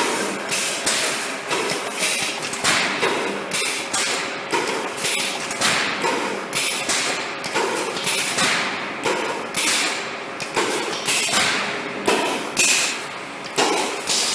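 Automatic panel fence spot welding machine cycling: a regular metallic knock about every two-thirds of a second as the cross-wire feeder works, over a steady machine noise.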